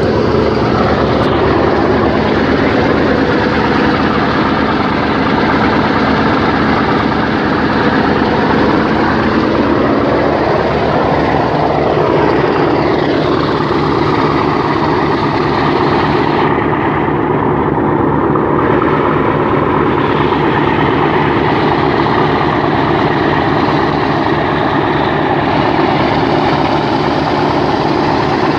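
Loud, steady drone of a river passenger launch's engine, with the wake churning and rushing along the hull.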